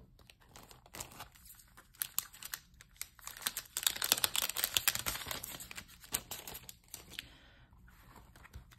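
Clear plastic bag crinkling as a stack of foil sticker sheets is handled and pressed flat, a run of crackles that grows busier partway through and thins out near the end.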